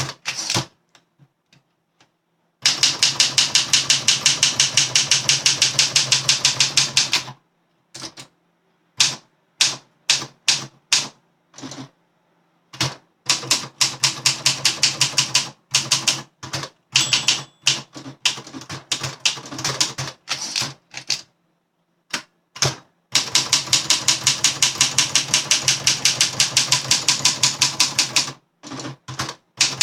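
1961 Olympia SM7 manual typewriter, freshly overhauled, being typed on: long fast even runs of keystrokes, with slower scattered keystrokes in between.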